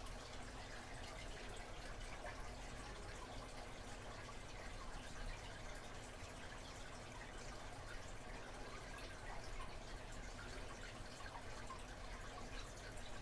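Faint scattered small clicks and ticks over a steady hiss: metal parts of a pin-tumbler lock being handled and worked at the bench.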